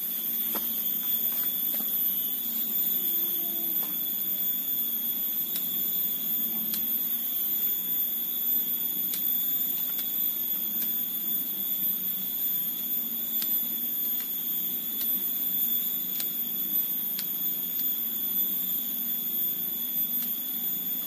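Small scissors snipping the leaf stems of a soursop bonsai, in faint irregular clicks every second or two. A steady high-pitched whine runs underneath.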